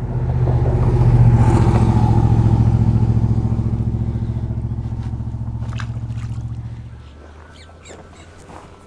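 A motor vehicle's engine passing close by: a steady low hum, loudest about a second in, that fades away around seven seconds in. A few faint clicks follow near the end.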